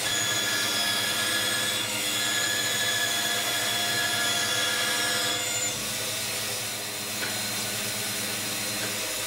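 Bandsaw running and cutting wooden knife handle scales: a steady motor hum with the whine and rasp of the blade in the wood. The higher whine drops away a little past halfway as the saw runs on.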